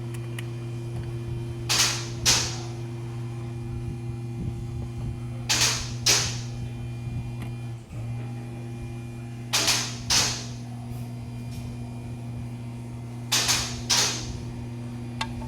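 Honda Civic engine running with a steady hum, broken about every four seconds by a pair of sharp bursts half a second apart: a misfire, which the owner puts down to a broken camshaft.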